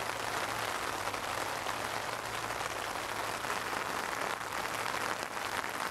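Rain pattering steadily on a tent's flysheet, heard from inside the tent as a dense, even patter.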